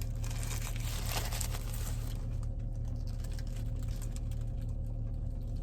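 Fast-food burger wrapper paper rustling and crinkling as it is handled and opened, mostly in the first couple of seconds, over a steady low hum.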